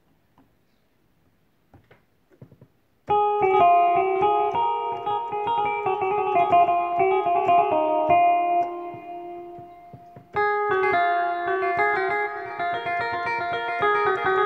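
Korg Pa-series arranger keyboard playing a quick melodic line on an electro plucked-string voice, starting about three seconds in. The playing breaks off briefly about ten seconds in, then picks up again.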